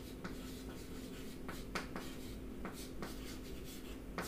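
Chalk writing on a chalkboard: a quiet, irregular run of short taps and scratches as the chalk strokes out letters.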